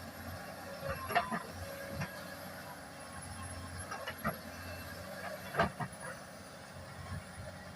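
Excavator engine running with a steady low hum, with several sharp knocks scattered through, the loudest about five and a half seconds in.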